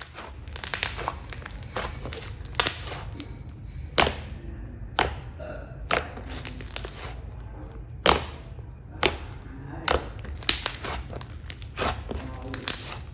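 Air bubbles popping in a thick, creamy slime as it is squeezed and played with: sharp pops, roughly one a second at uneven intervals.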